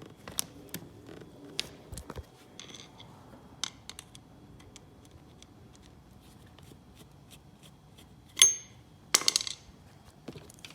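Hand tools working a hose clamp on a Yamaha TTR-125's carburetor intake: scattered small metallic clicks and taps, with a sharp ringing metal clink about eight seconds in and a quick run of clicks just after.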